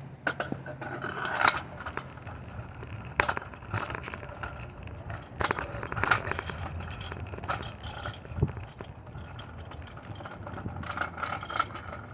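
Footsteps with irregular scraping, crackling and clicking as someone walks, over a steady low hum.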